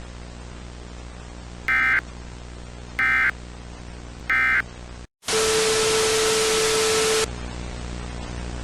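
Three short bursts of EAS end-of-message data tones, the screechy SAME 'NNNN' signal that closes an alert. Then a brief dropout and about two seconds of loud static with a steady low tone through it, after which a quieter hiss and hum carry on.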